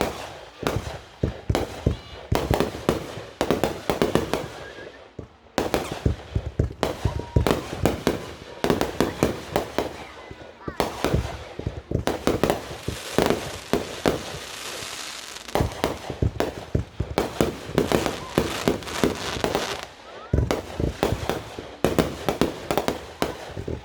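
Fireworks display: a rapid, unbroken barrage of shell bursts and sharp reports, with a stretch of dense crackling hiss about halfway through.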